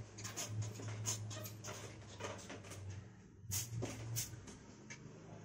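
Whiteboard duster wiping marker off a whiteboard: faint, irregular rubbing strokes, one after another.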